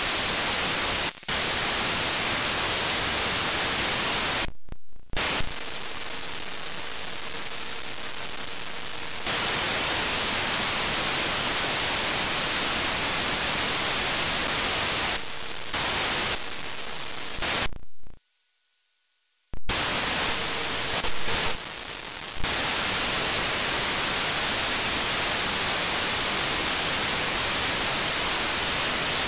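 Steady radio static hiss from an HDSDR software-defined radio's wideband FM demodulator while it is tuned across the FM broadcast band. No station audio comes through, only noise: the receiver fault at issue. The hiss dips several times, with quieter stretches carrying a faint steady high tone, and cuts out almost completely for about a second and a half about two-thirds of the way in.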